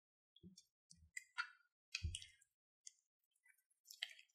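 Wooden spatula stirring thick crunchy slime with beads in a glass bowl: a run of faint sticky clicks and crackles, with a few soft thuds among them.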